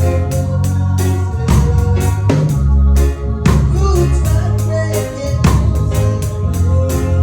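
Live band playing a song: drum kit keeping a steady beat over a heavy bass line and sustained organ-like keyboard chords.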